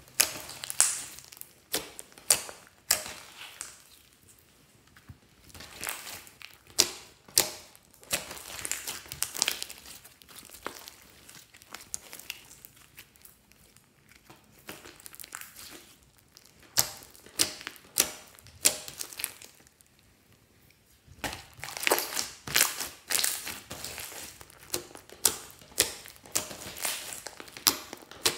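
Hands squishing, pressing and stretching a large batch of fluffy slime with small beads mixed through it, giving sharp wet clicks and pops that come in runs with quieter spells between them.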